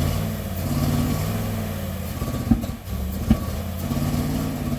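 Chevrolet LT1 350 V8 in a Z28 Camaro running roughly with an uneven, lumpy beat, broken by two sharp pops near the middle. The onlookers take the rough running for several cylinders not firing.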